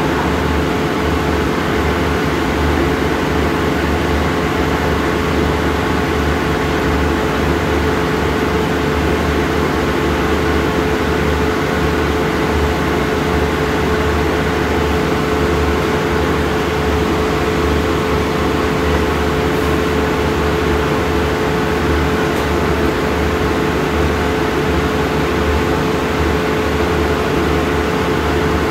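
Stationary diesel railcar train idling at the platform: a steady, loud engine and air-conditioning hum with a constant mid-pitched whine and a pulsing low rumble.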